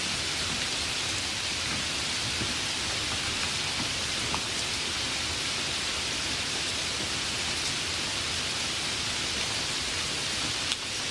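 Steady rain falling, an even hiss with a few separate drop ticks and one sharper tick near the end.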